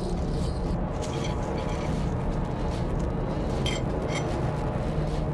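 Metal spoon spreading nut butter on a slice of bread on a ceramic plate: a few short scrapes and clicks, over a steady low background rumble.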